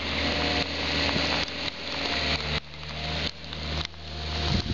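An engine idling steadily over a steady hiss of rain.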